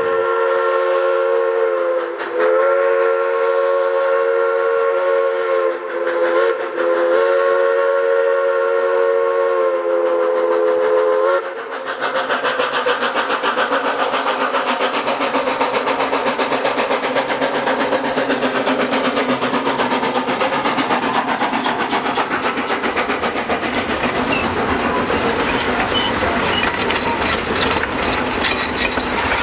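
Steam locomotive's chime whistle sounding a chord in four blasts, long, long, short and long, the standard grade-crossing signal. About twelve seconds in, the whistle stops and the passing train's fast, even running beat takes over.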